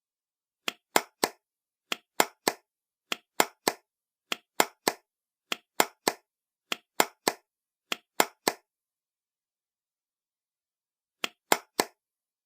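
Hand claps in a steady pattern of three quick claps, repeated seven times about every second and a quarter, then after a pause one more set of three near the end. In each set the first clap is softer than the other two.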